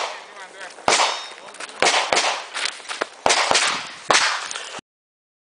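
Handgun shots fired in an irregular string during a practical shooting stage: about seven sharp reports over some three seconds, each trailing off briefly. The sound cuts off abruptly near the end.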